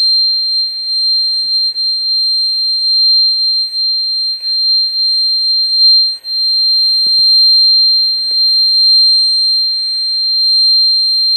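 Steady high-pitched test tone from an audio signal generator, amplified by a refurbished Hammond AO28 organ preamplifier and heard through its speaker. It holds one pitch throughout, with a brief dip in level about six seconds in, and comes through clean: the preamp is passing the signal as it should.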